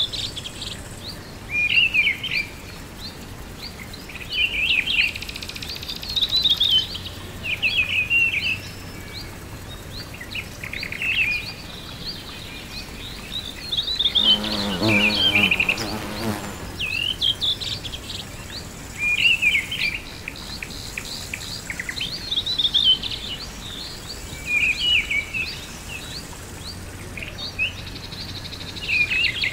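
Songbirds singing short chirping phrases, one every couple of seconds, over a steady outdoor hiss. About halfway through, an insect buzzes past for about two seconds, like a passing fly.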